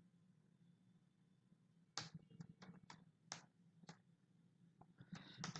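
Faint computer-keyboard keystrokes: separate clicks begin about two seconds in, spaced a fraction of a second apart, then come as a quicker run near the end. A low steady hum lies under them.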